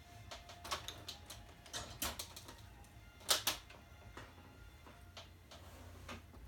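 A scatter of light clicks and taps, with a louder double click about three and a half seconds in: pens and markers being handled and set down on the desk.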